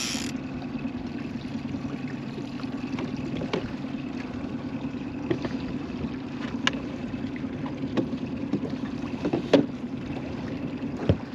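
Boat motor running steadily at trolling speed, a low even hum. A few sharp clicks or knocks sound over it, the loudest about nine and a half seconds in.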